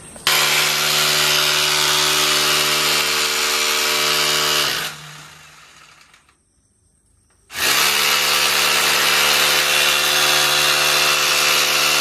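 Handheld electric drill boring into a masonry wall, a steady motor whine. It winds down about five seconds in, stops briefly, then starts again at full speed about seven and a half seconds in.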